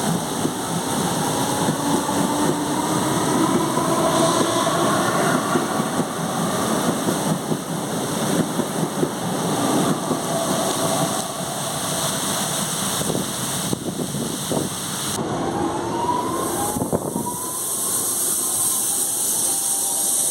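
CPTM Series 2070 electric multiple unit running, its traction motors whining in tones that rise in pitch as it gathers speed, at the start and again about three-quarters of the way through, over a steady rumble of wheels on rail.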